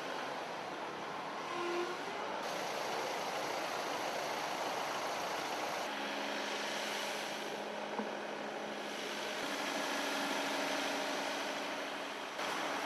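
Steady outdoor street noise with an engine running, the sound changing abruptly several times where the footage is cut.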